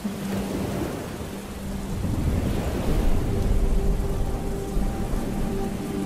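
Steady rain with a low rumble of thunder swelling up and rolling on through the middle. A soft held low note starts at the beginning under the rain, and more sustained notes join near the end as a slow piece of music begins.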